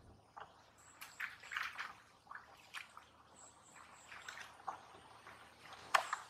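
Footsteps wading through shallow muddy water and tall grass: irregular splashes and rustles, the sharpest about six seconds in. A faint, high chirping repeats in the background.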